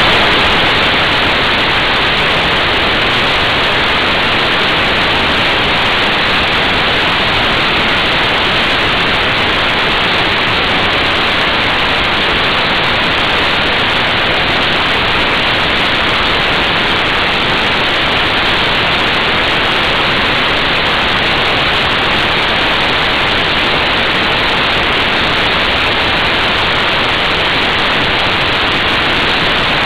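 Loud, steady rushing wind noise on a motorcycle-mounted action camera's microphone while riding, with no engine note standing out.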